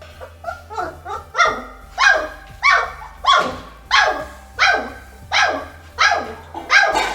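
Pyrenean mountain dog puppy barking over and over: a run of about ten yelping barks, roughly every two-thirds of a second, each falling in pitch. The barks start soft and grow louder over the first second or two.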